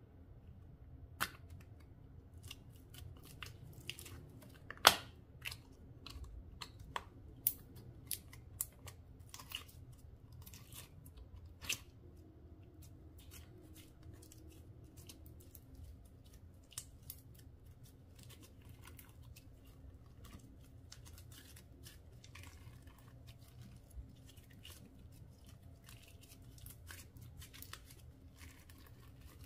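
Slime being worked by hand, giving irregular wet clicks and pops. There are a few louder pops in the first dozen seconds, the loudest about five seconds in, and then a denser run of small crackles.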